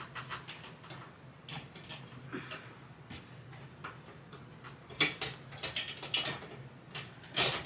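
Hand-tool work on light-fan hardware: small irregular metal clicks and rattles as screws are worked loose, loudest about five seconds in and again near the end, over a faint steady low hum.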